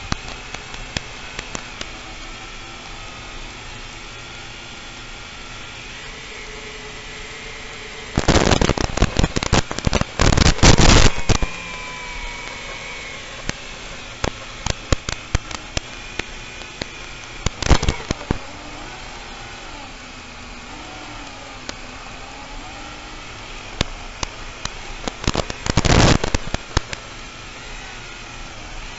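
FPV racing-drone motors whining under the onboard camera's microphone, their pitch wavering up and down with the throttle. Dense bursts of crackling come about eight to eleven seconds in, again briefly near eighteen seconds, and around twenty-five seconds.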